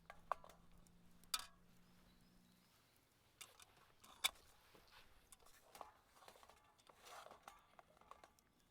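Quiet scene with a handful of sharp clicks and light knocks: three louder ones, about a third of a second in, just over a second in and about four seconds in, and softer ticks scattered between them.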